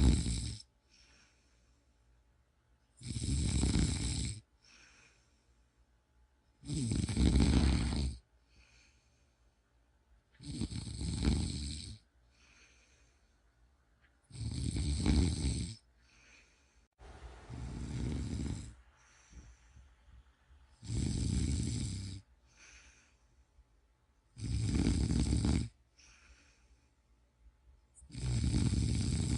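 A person snoring steadily: a loud snore about every three and a half seconds, each lasting a little over a second, with a short faint breath sound after each.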